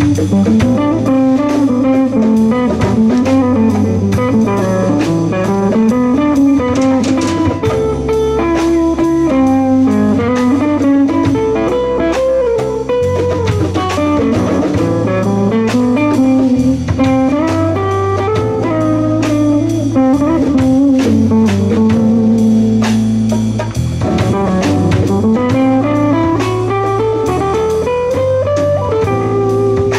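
Live jazz combo: an archtop electric guitar plays a single-note solo line that winds up and down in quick runs, over electric bass notes and a drum kit keeping time.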